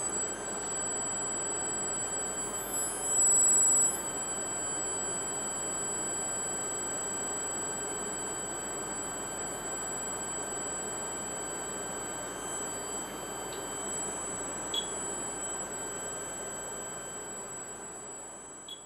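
Steady high-pitched electrical whine from the running test rig of car alternator, relay switches and inductors: several pure tones over a steady hiss. It is briefly louder about three seconds in.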